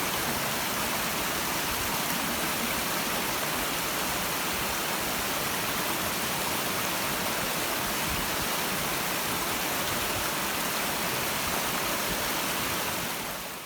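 Clear stream of water flowing and burbling steadily over rocks, fading out near the end.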